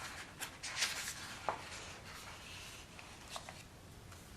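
Faint rustling with a few light, short clicks in a small room.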